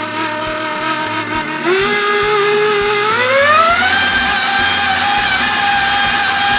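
KitchenAid Epicurean stand mixer running, its flat beater working thick muffin batter. The motor whine steps up in pitch a little under two seconds in, then rises again and holds higher as the speed is turned up.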